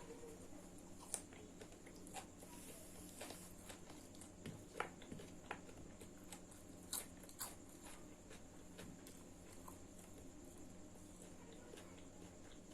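A person eating chicken fried rice and chicken leg: faint chewing and biting with scattered sharp clicks and crunches every second or so, over a steady faint hum.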